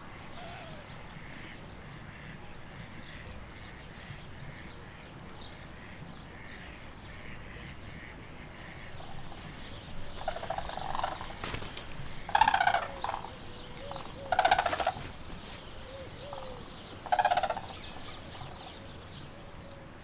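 White-naped cranes calling: four loud bursts of calls in the second half, each under a second long. Faint small-bird chirps sound in the first half.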